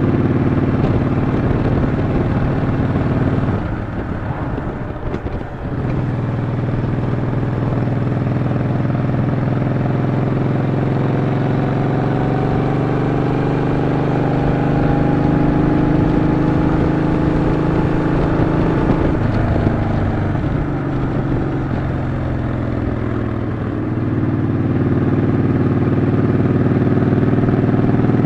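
Yamaha XV950 (Bolt) air-cooled V-twin motorcycle engine running while being ridden. The engine note drops for about two seconds around four seconds in, then changes pitch again around twenty and twenty-four seconds in.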